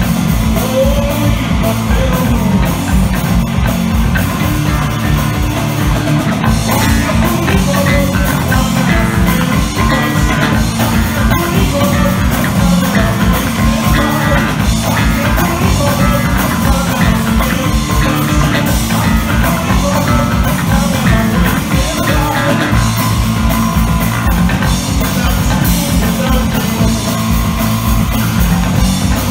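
Three-piece punk rock band playing loudly live: electric guitar, bass guitar and drum kit, with a man singing.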